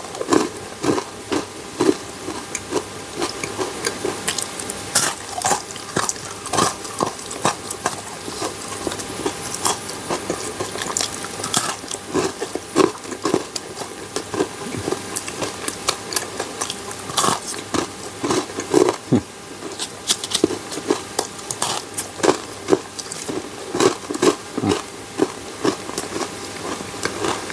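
Close-miked chewing of a chocolate bar: irregular wet mouth clicks and crunches.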